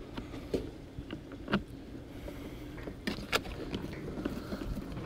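A screwdriver driving a Phillips screw to fix the spray wand protector cup onto an electric pressure washer: scattered light clicks and taps, the sharpest about a second and a half in and just after three seconds.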